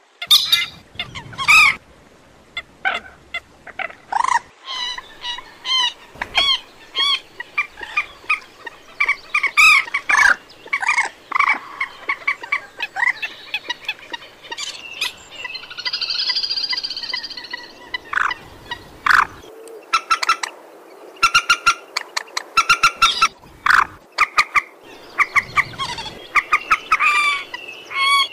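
Moorhen calling: runs of short, sharp clucking calls, with a longer trilling call from about 15 to 18 seconds in.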